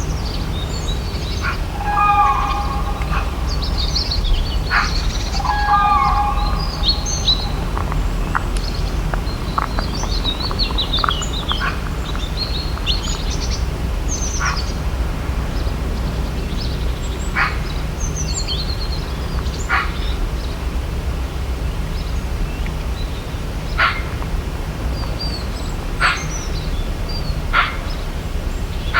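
Tropical forest birds chirping and calling, many short high notes and sharp single chirps scattered through. Several lower calls with stacked tones come in the first seven seconds. A steady low rumble runs underneath.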